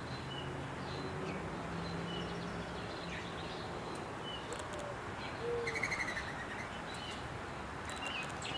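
American robin parents calling a nestling out of the nest: short high chirps every second or so, with a quick run of repeated notes about two-thirds of the way through. A faint steady low hum lies underneath.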